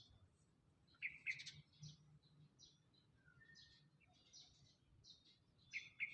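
Small birds chirping: many short high calls throughout, with louder, sharper calls about a second in and again near the end.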